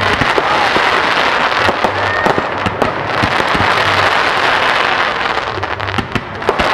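Fireworks going off in quick succession: many sharp cracks and bangs over a continuous dense crackle.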